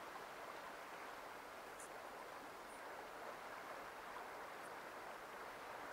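Faint steady hiss, close to silence, with a few tiny high ticks.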